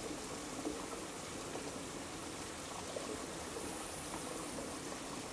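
Steady, even rush of flowing water, unbroken throughout.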